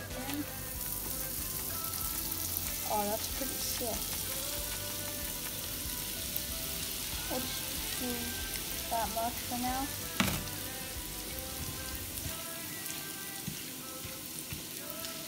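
Panko breadcrumbs poured into hot oil in a frying pan and frying with a steady sizzle that picks up about a second in. One sharp click about ten seconds in.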